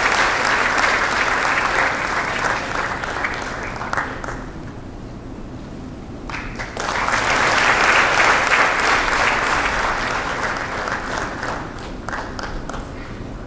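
Audience applauding in two rounds. The first dies away about four seconds in; a second swells up about two and a half seconds later and fades out near the end.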